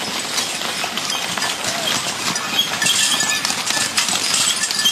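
Horse-drawn wagon on the move: hooves clip-clopping amid a steady clatter of many small knocks.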